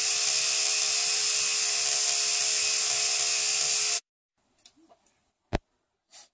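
Electric toothbrush running with a steady high buzz, cutting off suddenly about four seconds in. A single sharp knock follows about a second and a half later.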